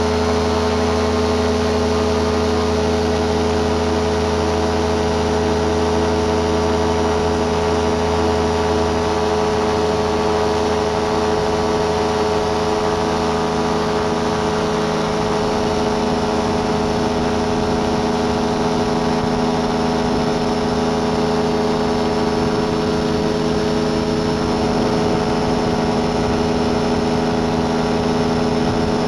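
Rotax 582 two-stroke twin engine of a Beaver RX550 float ultralight running at a steady high power setting, its pitch holding level through the takeoff run on the water and the climb away.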